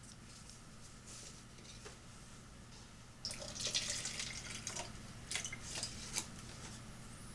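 Water being poured onto pepper plants. It starts about three seconds in with a stream lasting a second or so, followed by a few short splashes.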